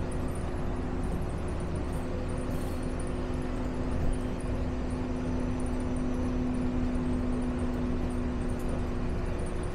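Walt Disney World monorail running, heard from inside the cabin: a steady rumble and hiss with a low, even hum.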